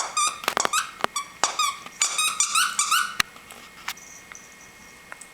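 A dog's squeaky toy squeaked rapidly over and over as the dog chews it, a quick run of short squeaks with sharp clicks. The squeaking stops about three seconds in, leaving a few faint clicks.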